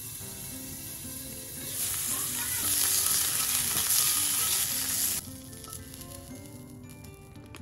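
Sausages sizzling in a hot cast-iron skillet. The sizzle swells about two seconds in and cuts off suddenly a little past halfway, over soft background music.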